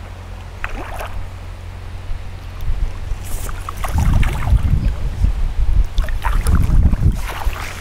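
Wind buffeting the microphone: a low rumble that comes in strong gusts about four seconds in and again around six to seven seconds, with a few light clicks and rustles between.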